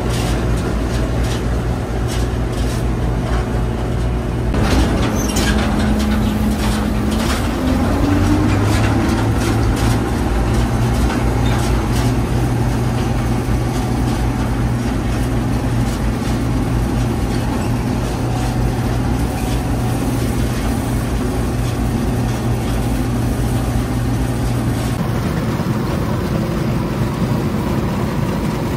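Bizon Super Z056 combine harvester's diesel engine running steadily with a mechanical rattle. About five seconds in the sound shifts, and a higher tone rises over the next few seconds before holding steady.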